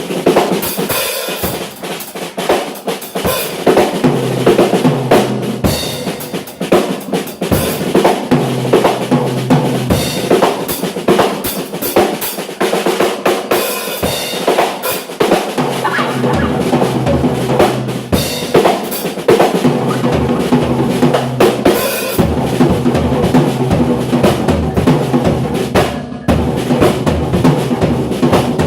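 Live rock band playing loudly, the drum kit to the fore with bass drum and snare hits and drum rolls, over a bass guitar line that comes in a few seconds in.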